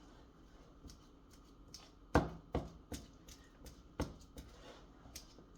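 Fork mashing bananas in a bowl: light scraping clicks with several sharp knocks of the fork against the bowl, four of them loudest from about two seconds in.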